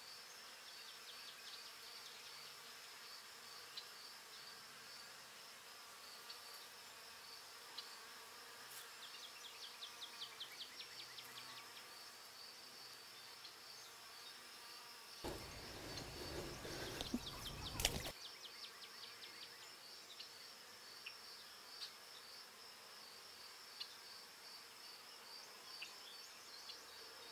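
Faint, steady chorus of insects: a high, pulsing trill that runs on without a break. Past the middle comes a louder noise for about three seconds, ending in a sharp click.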